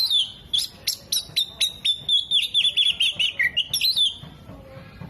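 Oriental magpie-robin (kacer) singing loudly: a quick string of sharp, whistled chirps that runs into a fast trill and stops about four seconds in.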